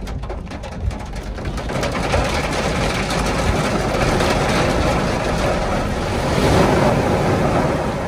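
Heavy water pouring and drumming onto a car's windshield and roof, heard from inside the cabin. It builds over the first two seconds and is loudest near the end, when a solid sheet of water covers the glass.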